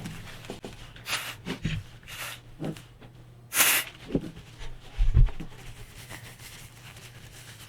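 Handling of 1911 pistol parts during cleaning: scattered light taps and rustles, a few short hissing noises, the loudest a little after the middle, and a dull thump about five seconds in.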